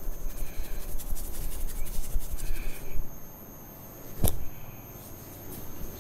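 Hands rubbing and working through hair and scalp in a head massage, a dense scratchy rustle that stops about three seconds in, followed by a single sharp click a second later.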